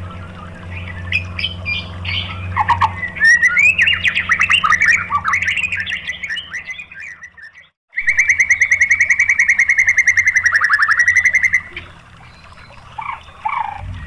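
White-rumped shama (murai batu) singing: a run of varied whistled and chattering phrases, then, after a short break about eight seconds in, a loud, fast rattling trill lasting about three and a half seconds, followed by a few softer notes.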